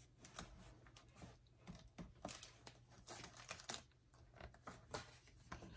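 Pages of a picture book being handled and turned by hand: faint, scattered paper rustles and light taps.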